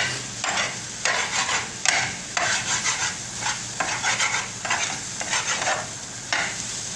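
Spatula stirring and scraping egg bhurji (scrambled eggs) in a hot pan: a run of irregular scraping strokes over a steady sizzle of frying.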